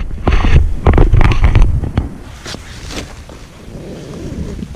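Camera handling noise: loud low thumps and rubbing on the GoPro's microphone with nylon tent fabric rustling, loudest in the first two seconds and fainter after.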